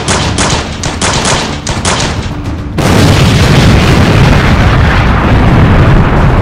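Action soundtrack music with a fast, driving beat, cut off about three seconds in by a loud explosion sound effect whose deep rumble runs on.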